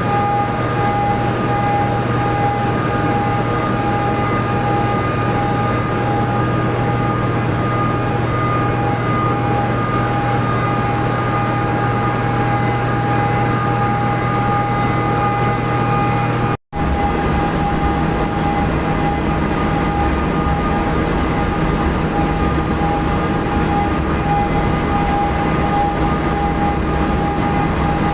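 Loud, steady industrial machinery hum with several fixed whining tones, typical of the generating equipment in a hydropower plant. It breaks off for an instant about two-thirds of the way in, and the low part of the hum is different afterwards.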